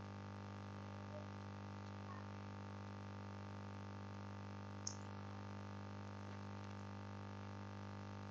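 Steady electrical hum and buzz, a low drone with many even overtones, unchanging throughout. One short faint high blip about five seconds in.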